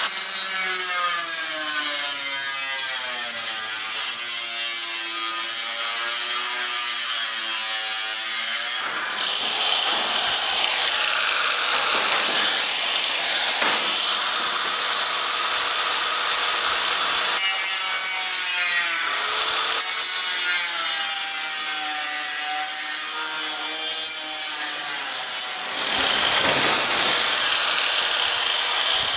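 Angle grinder with a cut-off wheel cutting corrugated sheet-metal roofing: a loud, continuous grinding whine whose pitch wavers as the wheel bites into the metal. It eases off briefly three times, about 9, 19 and 25 seconds in.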